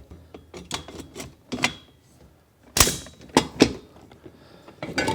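Aluminium frame poles being pushed into corner connectors: a string of sharp clicks and knocks, the loudest cluster about three seconds in.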